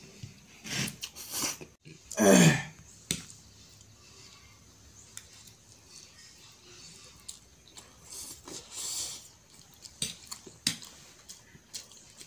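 Close-up eating sounds: instant noodles slurped and chewed by hand, with wet mouth smacks and small clicks scattered through. About two seconds in comes one loud sound that falls in pitch.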